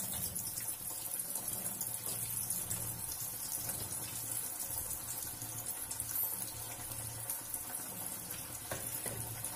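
Poha and potato pakoras deep-frying in a kadhai of hot oil: a steady sizzle and bubbling hiss as more pieces are dropped in.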